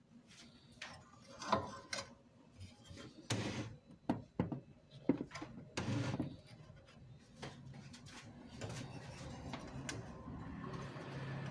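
Irregular clicks, knocks and rattles of hands working on the metal frame, rods and wiring inside an opened cup sealer, busiest in the first six seconds and sparser after. A low steady hum comes in near the end.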